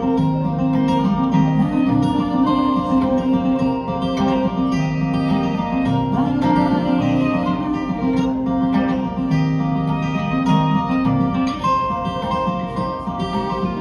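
Acoustic string band playing an instrumental passage live: two acoustic guitars strumming chords under a bowed fiddle.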